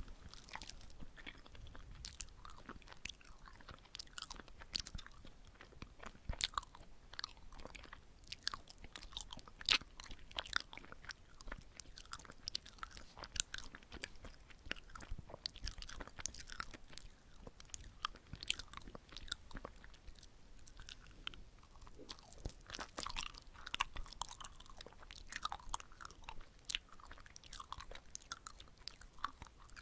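Close-miked chewing of a sticky red-bean-filled glutinous rice cake: a steady run of short wet smacks and sticky clicks from the mouth.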